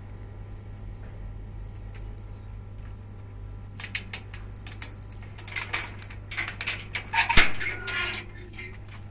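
Keys jangling and metal clinking and rattling as a padlocked steel gate is unlocked and opened, with one sharp clank about seven seconds in. A steady low hum runs underneath.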